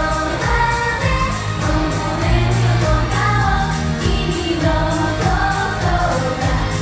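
Japanese idol pop song: a group of women singing together over a pop backing track with a steady beat.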